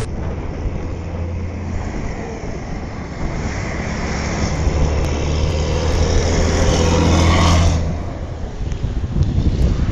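DAF XF105 510 truck's 12.9-litre PACCAR MX straight-six diesel running, its steady low hum building in loudness for several seconds, then dropping off sharply about eight seconds in.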